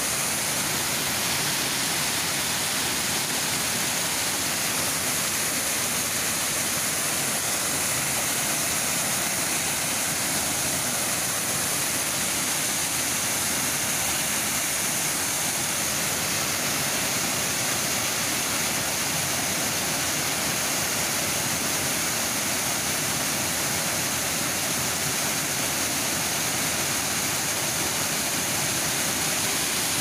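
Waterfall pouring over a rock ledge into a pool below: a steady, even rush of falling water.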